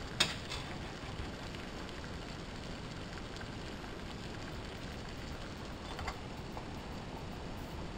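Steady hiss of a soda-can alcohol stove burning under an aluminium pot of water at the boil. A short click just after the start, and about six seconds in a light clink as the aluminium lid is set on the pot.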